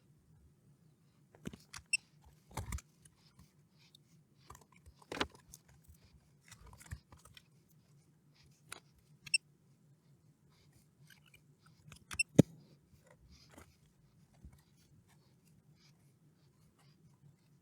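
Scattered small clicks and taps of hand tools and meter probes handling a circuit board on a workbench, a few with a very short high-pitched chirp, over a faint steady low hum.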